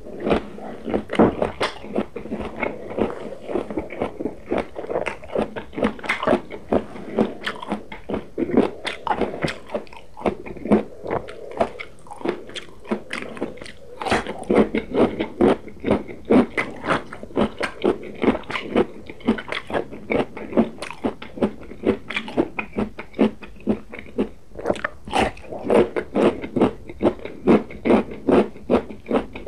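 Close-miked chewing and crunching of raw and roasted vegetables, with steady, even crunches about two to three a second.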